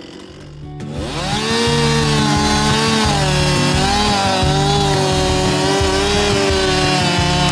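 Chainsaw revving up to full throttle about a second in and cutting the back strap of a bore-cut forward leaner, its pitch dipping and recovering under the load of the cut.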